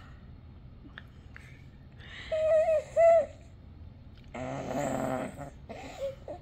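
A baby cooing: two short, high-pitched, wavering coos a little over two seconds in, then a longer, lower and breathier vocal sound about a second later.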